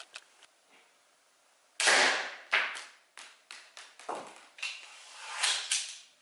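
MARK 3 slingshot carbine firing, a sudden sharp crack about two seconds in, followed by a run of clicks and rustling.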